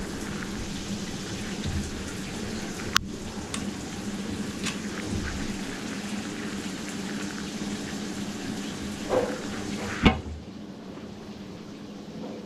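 Steady rush of running water, with a sharp click about three seconds in and a knock about ten seconds in, after which the rush turns duller.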